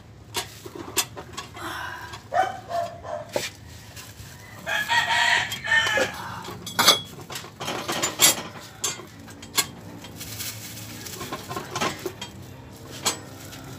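A rooster crowing once, a call of over a second about five seconds in, with a shorter call near two seconds. Scattered sharp clicks and knocks throughout, the loudest a little after six and eight seconds in.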